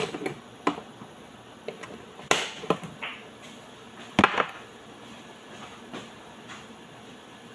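Kitchen containers and utensils being handled and set down: about half a dozen sharp knocks and clacks, the loudest about two and a half and four seconds in, with quiet room tone between.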